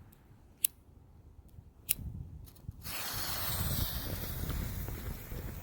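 A few sharp clicks, like a lighter being struck, then about three seconds in a firecracker fuse catches and hisses steadily, with low wind rumble on the microphone.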